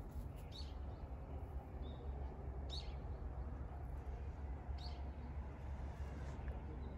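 Quiet outdoor ambience: a low steady rumble under three brief, high chirps of a small bird, about two seconds apart.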